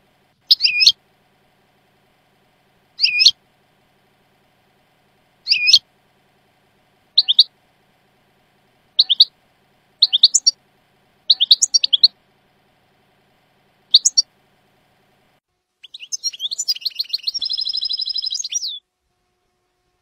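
European goldfinch song in the 'Jordanian' song style used to tutor caged goldfinches: single short, high chirped notes every second or two, then a rapid buzzy trill near the end.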